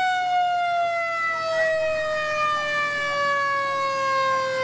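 US fire engine's mechanical siren winding down after being run up: one loud, steady wail sliding slowly lower in pitch as it coasts to a stop.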